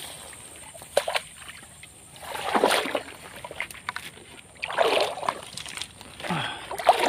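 Swamp water sloshing and splashing in three surges about two seconds apart, as someone moves through it.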